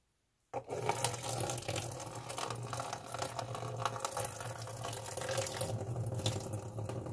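Kitchen tap running steadily into a bowl of radish microgreens, the water splashing and filling the bowl as they are rinsed. It comes on suddenly about half a second in.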